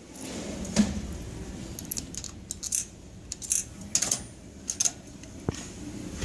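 Scattered metallic clicks and short rattles of coins and the coin mechanism of a sticker vending machine being worked.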